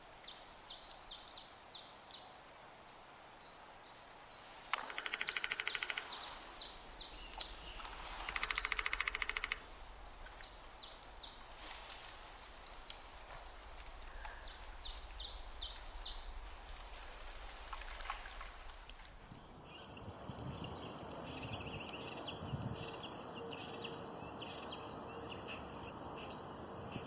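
Songbirds singing outdoors: runs of quick, high, downward-sweeping notes, with a buzzy rattling trill twice in the first half. About two-thirds of the way through, the background changes abruptly and a single short high chirp repeats roughly once a second.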